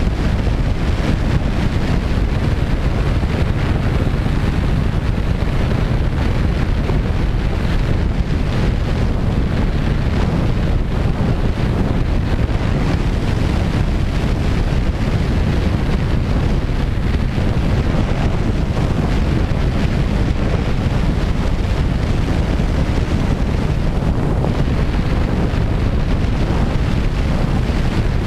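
Steady wind rushing over the microphone of a camera riding on a radio-controlled Twin Otter model plane in flight. The rush is even and heaviest in the low end.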